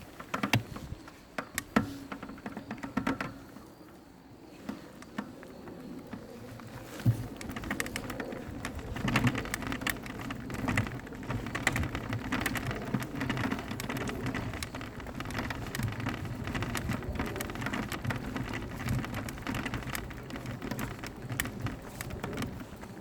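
Mountain bike rolling down a rough dirt trail: tyres crunching over stones and roots, the bike rattling and clicking over bumps, with a steadier rumble from about eight seconds in.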